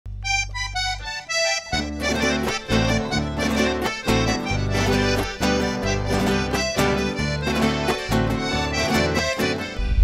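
Instrumental theme music: a short run of single notes, then bass and a steady beat join about two seconds in.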